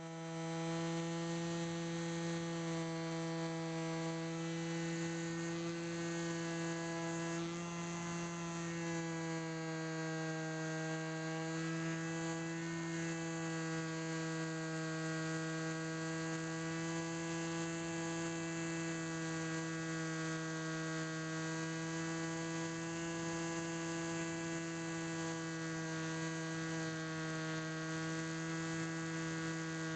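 Electric motor and propeller of a HobbyKing Bix3 RC plane running at a steady throttle, heard close to a camera mounted on the plane: a constant buzzing whine that wavers slightly in pitch a couple of times.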